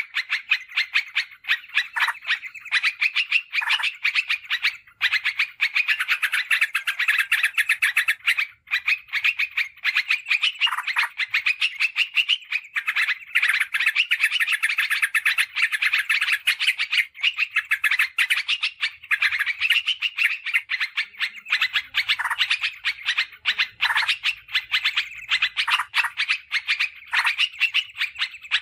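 Yellow-vented bulbuls (trucukan) calling in a rapid, unbroken stream of chattering notes, densely packed and overlapping.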